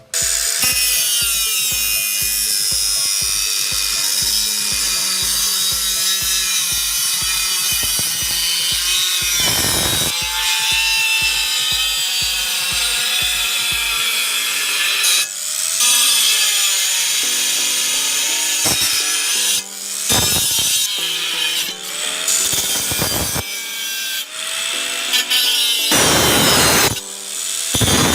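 A power tool working on metal: a loud, steady grinding noise for about the first fifteen seconds, then in shorter runs with pauses.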